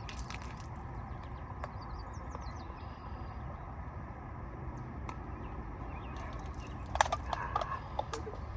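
Faint bird chirps over a steady low outdoor background noise, with a few handling clicks and rattles about seven seconds in.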